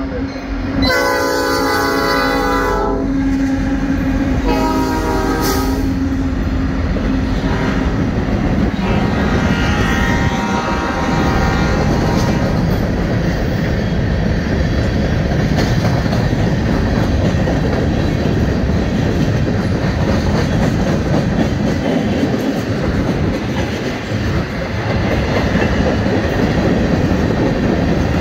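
Diesel freight locomotives passing close by, sounding the horn in three blasts over the first twelve seconds or so: a long one, a short one, then another long one. The freight cars follow, rolling past with steady wheel clatter on the rails.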